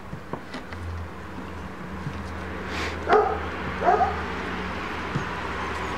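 Bernese mountain dog puppies playing, one giving two short, high barks about three and four seconds in, over a steady low hum.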